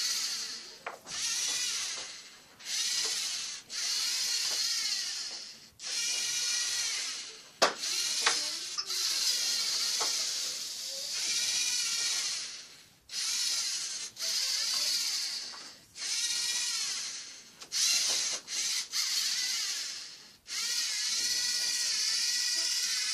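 A small robot's geared electric drive motors whine in short runs of about a second, starting and stopping over and over as it drives and turns. The pitch rises and falls within each run, and a few sharp clicks fall between runs.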